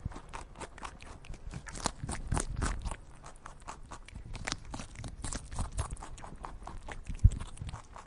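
Rabbit chewing grass close up: a rapid run of crisp crunching bites. A single sharp thump about seven seconds in is the loudest sound.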